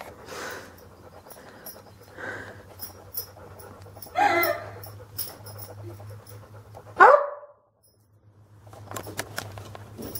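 A few short animal calls, the loudest a sharp one dropping in pitch about seven seconds in, with light clicks between them.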